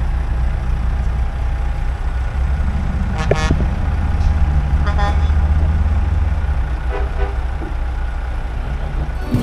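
Heavy truck diesel engines idling with a steady deep rumble. A few short horn toots sound over it, about three, five and seven seconds in.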